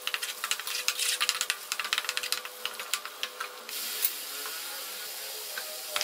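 Chopped onions and ginger-garlic paste sizzling and crackling in hot oil in a metal pot as they are stirred with a spoon; the crackling is dense at first and thins out about three and a half seconds in.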